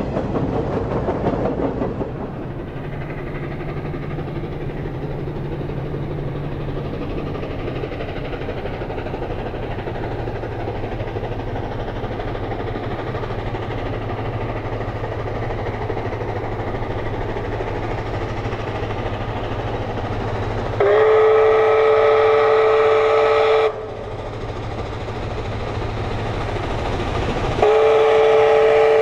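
Canadian Pacific 4-6-4 Hudson 2816's steam whistle blowing a chord of several tones in one long blast of about three seconds, then after a few seconds' pause a second long blast near the end, as for a grade crossing. Before the whistle there is a steady low rumble of the train.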